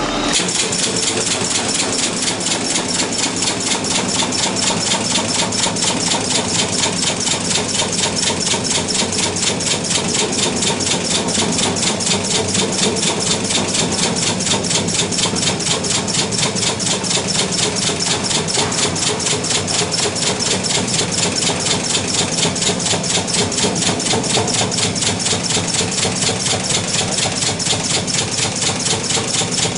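Automated metalworking machine head working along the rim of a stainless steel sink bowl, running with a fast, even, machine-like pulsing.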